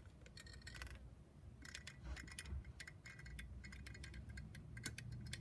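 Hand-held caulk gun clicking as its trigger is squeezed to push out a bead of acrylic caulk: a string of faint, irregular clicks.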